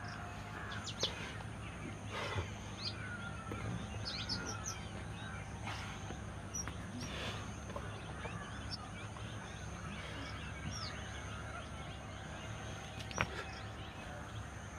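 Small birds chirping on and off over a steady low background rumble, with a few sharp clicks, the loudest near the end.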